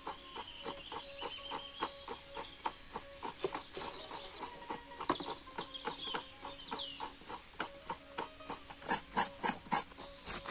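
Knife chopping leafy greens on a wooden cutting board in quick, even strokes, about four to five a second.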